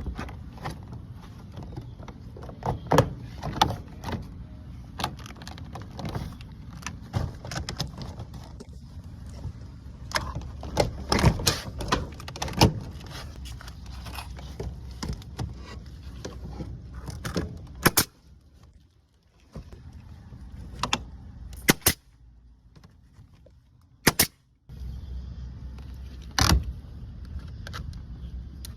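Hands-on vinyl siding work: irregular clicks, snaps and knocks of plastic panels and tools being handled, over a steady low hum, with a few sharp single cracks in the second half.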